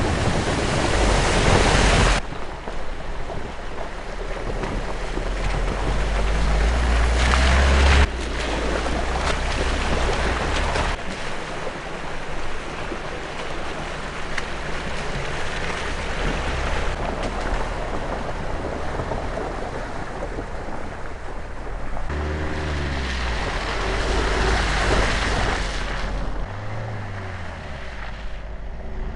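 Kia Sportage 2.0 turbo diesel SUV driving through a shallow stream, its wheels throwing up loud splashing water over the engine note, with several abrupt jumps in the sound. Near the end the engine comes through on its own, its pitch rising and falling in steps.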